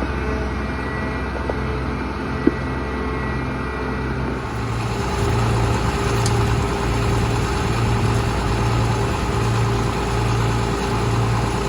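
Farm tractor engine idling steadily, with a single sharp click about two and a half seconds in. Just past four seconds the sound changes and a low, even throb sets in, pulsing about once a second.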